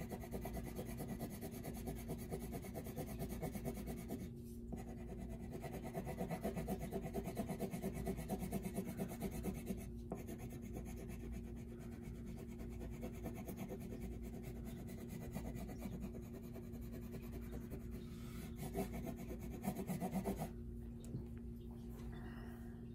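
Red wax crayon rubbing on paper in quick back-and-forth coloring strokes, a soft continuous scratching with a couple of brief pauses, stopping shortly before the end.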